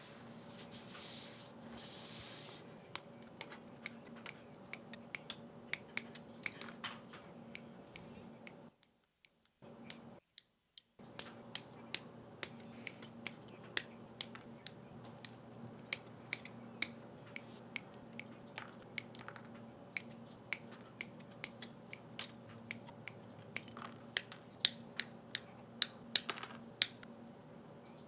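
Sharp, irregular plastic clicks and snaps, often several a second, from Gunpla model kit parts being worked during assembly. The clicks cut out briefly about nine seconds in.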